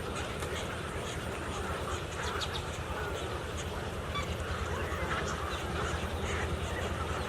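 A large flock of birds calling at once, a dense, continuous chatter of many short calls, over a steady low hum.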